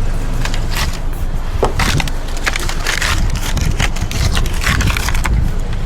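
Irregular clicking, crackling and scraping, like tools or hands working against a car's door or body, over the steady low hum of a car engine idling.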